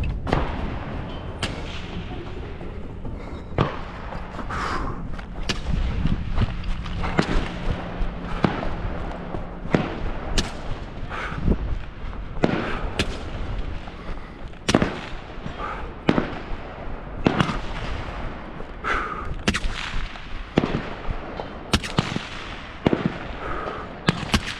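Gunshots at a competition shooting stage: a string of single shots at irregular intervals of roughly one to two seconds, some sharp and close, others fainter.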